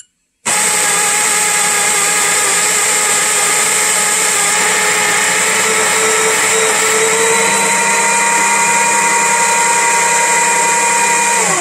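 Baratza Sette 270W conical burr grinder grinding a single dose of espresso beans. A loud, steady motor-and-burr whine starts about half a second in, then winds down with falling pitch as the grinder shuts off near the end.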